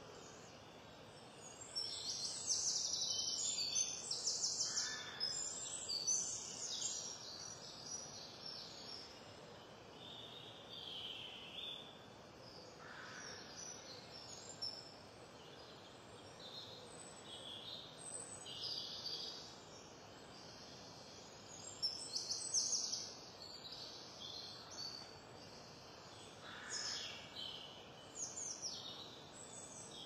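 Woodland songbirds singing, with several high, quickly repeated trilling phrases overlapping over a steady outdoor hiss; the song is loudest for a few seconds near the start and again about twenty-two seconds in.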